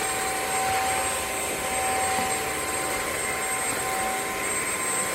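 Bissell CrossWave OmniForce cordless wet-dry vacuum running steadily: a constant motor whine over a continuous rush of air.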